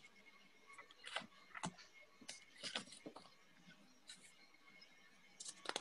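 Near silence on an online call, broken by a few faint, scattered clicks.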